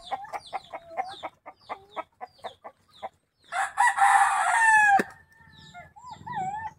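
Chickens clucking in quick short notes, then a rooster crows loudly for about a second and a half, the crow ending in a falling note; a softer wavering call follows near the end.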